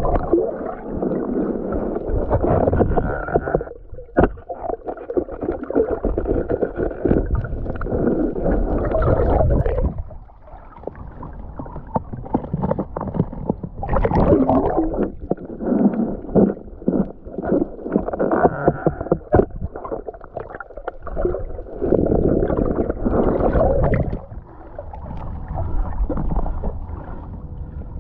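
Muffled water sloshing and gurgling against an action camera moving through shallow sea water. It comes in irregular surges with a few short lulls.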